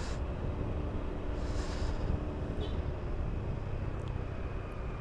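Honda Beat scooter's small single-cylinder engine running while riding along a city street, under a steady low rumble of wind and road noise on the helmet-mounted microphone, with a short hiss about a second and a half in.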